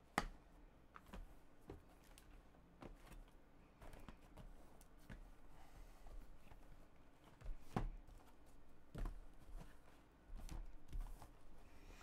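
Sealed cardboard trading-card boxes being handled and stacked: scattered faint taps and light knocks of box on box, with a louder knock a little under eight seconds in and a few more near the end.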